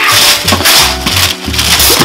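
Gift-wrapping paper torn off a present in several quick crackling rips, over background music with a steady bass beat.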